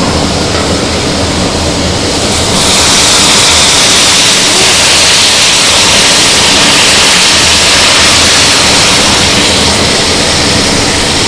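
Large cast kettle of sugarcane juice at a hard boil over its fire, nearly cooked down to syrup: a steady rushing hiss that grows louder about two and a half seconds in.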